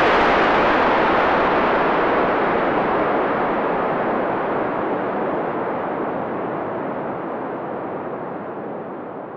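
Synthesized thunder from a VCV Rack modular patch: white noise through an envelope-controlled VCA and a chain of overdriven filters. The clap has just struck, and the sound fades slowly over nine seconds, growing duller as the filter closes, until only the rumble of the thunder remains.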